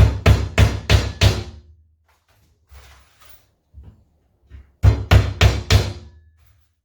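A hammer driving 2-inch galvanized nails into a wooden hive wall: a quick run of about five blows, a pause, then four more blows about five seconds in. The nails are being started in the boards ahead of assembling the box.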